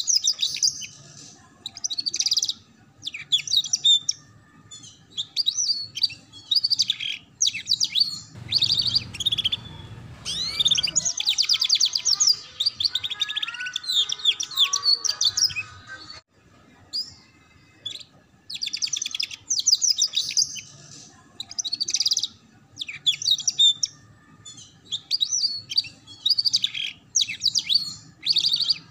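Domestic canary singing in short, high-pitched bursts of very rapid trills and chatters, the 'ngeriwik' style, with brief pauses between phrases. It sings one longer unbroken run about twelve seconds in. A faint low rumble sits underneath it about eight to eleven seconds in.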